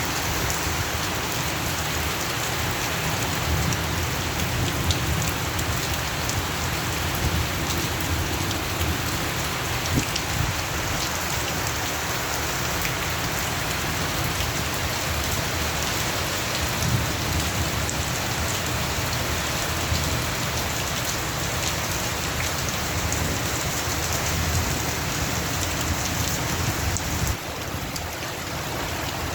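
Steady rain falling, a dense even patter with scattered sharper drop ticks. It drops slightly in level and changes character shortly before the end.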